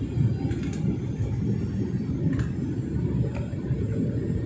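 Steady low rumble inside a Boeing 737-900ER cabin in flight, from engine and airflow noise during the descent, with a few faint ticks.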